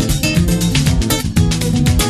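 Background music led by guitar, with a steady rhythmic beat.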